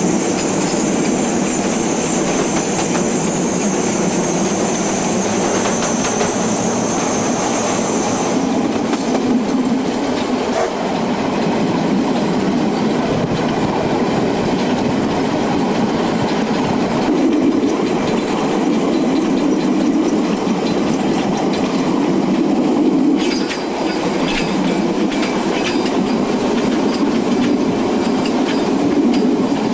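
A train running along the track, its wheels rattling and clattering over the rails in a steady rumble, with a high hiss that stops about eight seconds in.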